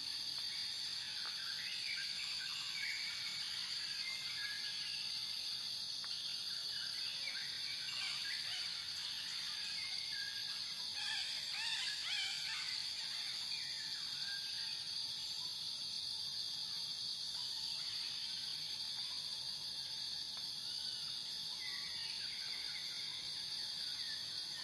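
A steady, high-pitched insect chorus, with birds chirping now and then.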